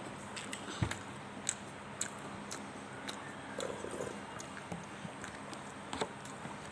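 Chewing fried sushi, with wet mouth sounds and a scattering of sharp, crisp clicks.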